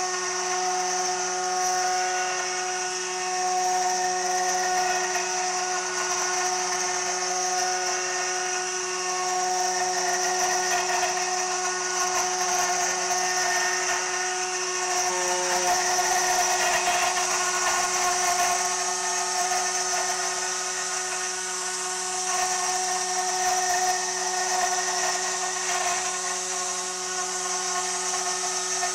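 CNC router's 2.2 kW high-speed spindle milling aluminium with a 6 mm two-flute endmill: a steady high-pitched whine with a rougher cutting noise on top that swells and eases, strongest around the middle.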